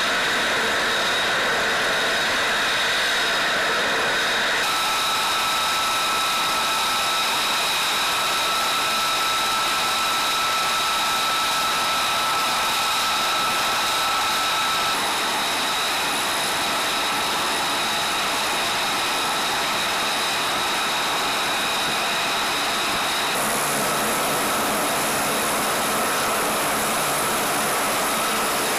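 Aircraft turbine engines running steadily at idle on the ramp: a loud, even rush of noise with a high, steady whine on top. The whine and rush change in character a few times, about 5, 15 and 23 seconds in.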